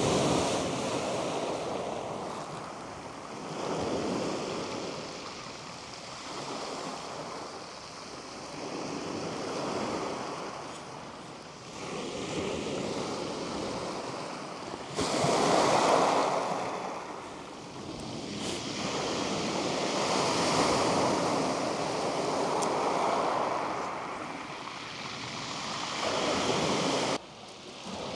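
Small waves breaking on a shingle beach and washing back over the stones, swelling and fading every few seconds.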